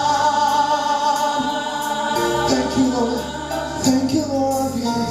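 Gospel worship music: a choir or congregation singing long held notes over instrumental backing.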